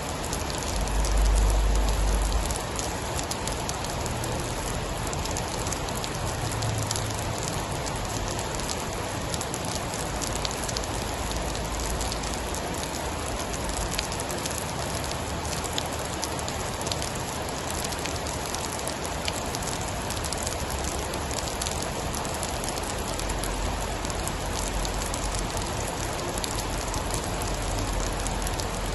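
Steady heavy rain falling on a surface, with scattered sharp drop ticks. A low rumble swells in the first couple of seconds and again near the end.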